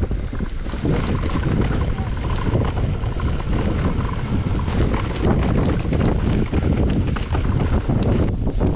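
Wind buffeting the microphone of a camera on a moving mountain bike, mixed with a steady clatter of tyres and frame rattling over a rough trail.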